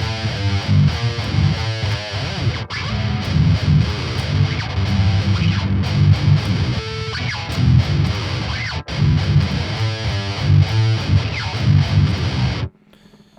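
Distorted electric guitar playing a heavy metal riff, with dense low palm-muted chugs and higher picked notes, breaking off abruptly near the end.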